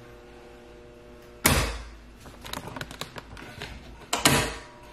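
Electromechanical contactor and relays on an HVAC training board clacking as the thermostat setting is changed: the steady electrical hum stops with a loud clack about a second and a half in, a run of light clicks follows, and a second loud clack near the end brings a hum back.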